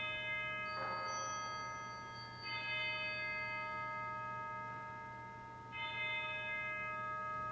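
Altar bell chime rung at the elevation of the consecrated host: struck several times, each stroke ringing on in long, slowly fading tones.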